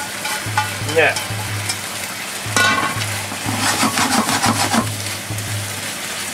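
Miso-marinated pork sizzling in a non-stick frying pan as stir-fried vegetables are tipped in, then stirred with long wooden cooking chopsticks. A steady frying hiss runs throughout, with a sharp knock a little past halfway and a quick run of chopstick clicks on the pan just after it.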